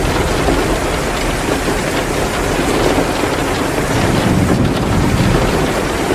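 Heavy rain pouring steadily, mixed with a wood fire crackling in a fireplace. A low rumble swells about four seconds in and fades by the end.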